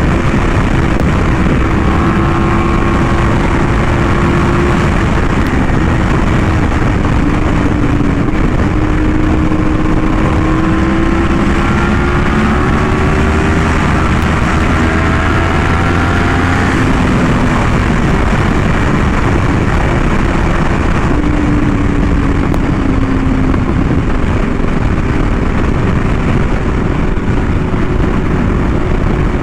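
Yamaha R1M's crossplane inline-four cruising through an SC Project exhaust, its pitch gently rising and falling with the throttle. Heavy wind rush on the microphone covers it.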